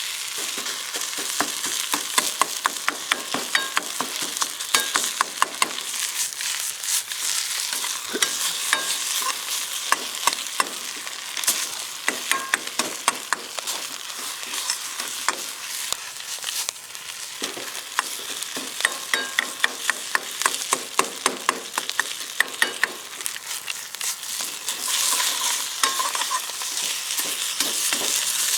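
Fried rice sizzling in a Uniflame camp wok over a campfire while it is stir-fried: a steady hiss with many sharp clicks and scrapes of the utensil against the wok, often in quick runs.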